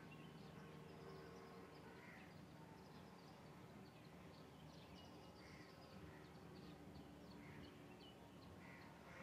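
Near silence: faint outdoor ambience with a low steady hum and a few soft bird calls scattered through it.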